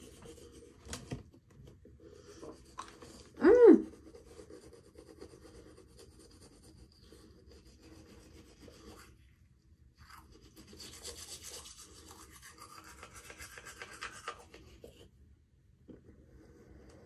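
Bamboo toothbrush scrubbing teeth, a steady scratchy rubbing that gets louder and brighter from about eleven to fifteen seconds in. A short voiced hum through the mouthful, the loudest sound, comes about three and a half seconds in.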